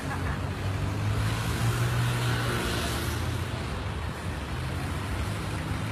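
City road traffic: a motor vehicle's low engine rumble swells as it passes, loudest about two seconds in, over the steady hum of traffic.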